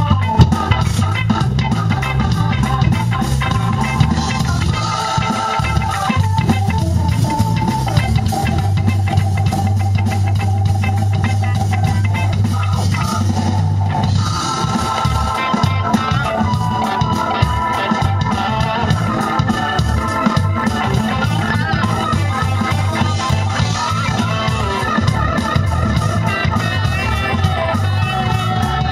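Live funk fusion band playing an instrumental passage, with a guitar lead over electric bass, keyboard and drum kit.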